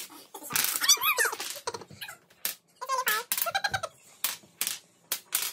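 Coloured toy blocks set up like dominoes toppling and clattering onto a wooden floor, a string of sharp clacks. High, wavering squeals come in between, about a second in and again around three seconds in.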